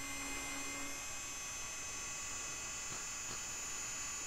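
Hart cordless electric screwdriver with a 10 mm socket running steadily as it backs out a bumper-cover bolt: an even motor-and-gear whine.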